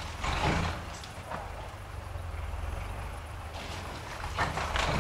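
A steady low engine rumble, with several short bursts of rushing, hissing noise laid over it.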